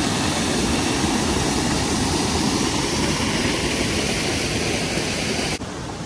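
The Triberg waterfalls, the Gutach river cascading down rock steps, giving a loud, steady rush of falling water. Near the end the sound drops suddenly to a quieter, duller rush.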